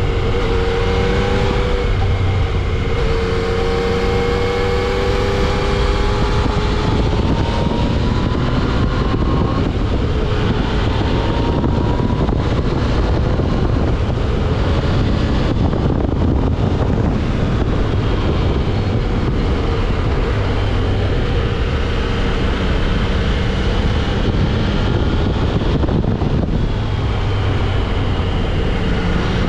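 Yamaha XSR900's inline-three engine through its stock exhaust, running under way as the bike is ridden, its pitch rising and falling with the throttle. Wind rushes over the microphone.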